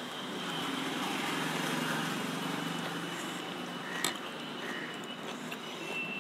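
Steady background noise under a meal at a table, with a single sharp click of a spoon against a plate about four seconds in.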